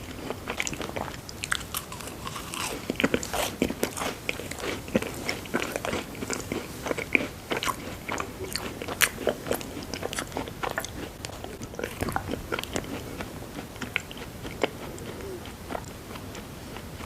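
A person chewing and biting sweets close to the microphone, with irregular crisp crunches and clicks several times a second.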